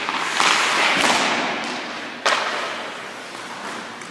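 Ice-skate blades scraping across the ice, with a low knock about a second in. A little after two seconds comes one sharp crack of a hockey stick hitting a puck, echoing through the arena.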